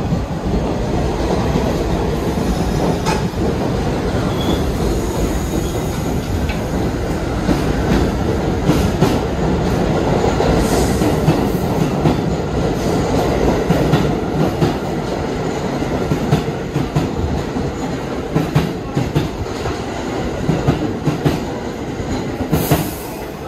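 New York City subway train running along the tracks: a steady loud rumble of steel wheels on rail with sharp clacks over the rail joints. The noise falls away near the end.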